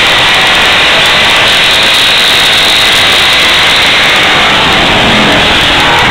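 Racing lawnmower engines running loud and steady at close range, overloading the microphone into a harsh, distorted noise.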